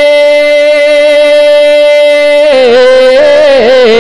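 A man singing an Urdu manqabat, a devotional praise poem. He holds one long steady note, then about two and a half seconds in breaks into a wavering, ornamented melodic run.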